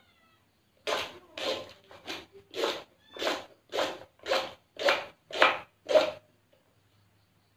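Kitchen knife chopping crisp taro leaf stalks on a wooden cutting board. There are about ten even cuts at roughly two a second, and they stop about six seconds in.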